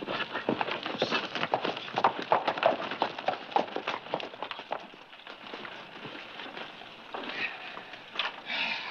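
Hoofbeats of galloping horses, a rapid clatter that thins out about halfway through.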